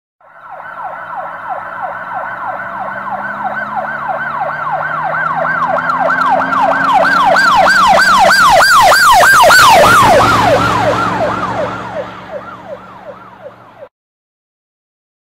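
Emergency vehicle siren in a fast yelp, about three wails a second, passing by with a low drone underneath. It grows louder to a peak about nine to ten seconds in, then drops in pitch and fades, and stops abruptly.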